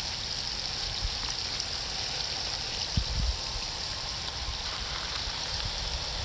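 Steady hiss of water spraying from hoses onto potted succulents, with a low thump about three seconds in.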